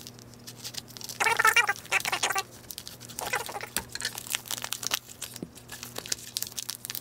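A postal package's wrapping being torn open and crinkled by hand, in irregular rustling bursts, over a faint steady hum.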